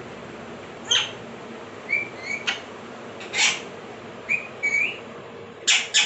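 Alexandrine parakeets calling: a run of short rising whistled notes and brief screeches, with a louder screech in the middle and loud harsh squawks near the end.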